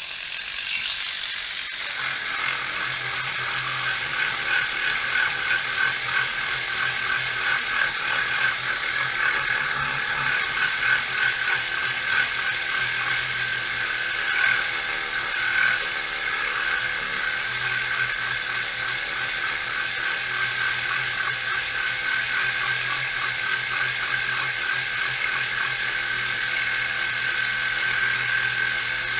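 Dspiae rechargeable reciprocating sander switched on at its second speed setting, its small motor buzzing steadily as the sanding tip strokes rapidly back and forth over the paint on a plastic model part.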